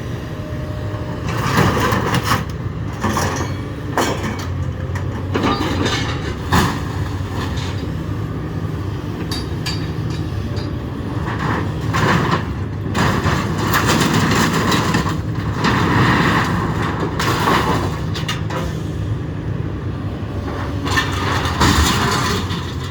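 A heavy machine's engine running steadily while scrap metal is grabbed and dropped: repeated irregular clanks, bangs and crunching of sheet metal as the load is picked up off the trailer.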